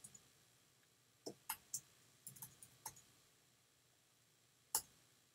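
Computer keyboard keys clicking faintly as text is typed: a handful of separate, irregularly spaced keystrokes, with a last one near the end.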